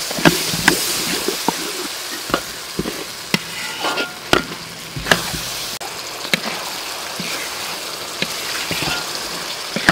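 Thick sauce sizzling in a wok while a spatula stirs it, with irregular sharp clicks and scrapes of the spatula against the metal over the steady sizzle.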